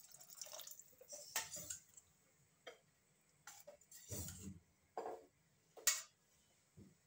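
Metal spoon clinking and scraping against a cooking pot of chickpea curry, with a little splashing, as water is added and stirred in. A string of irregular light knocks.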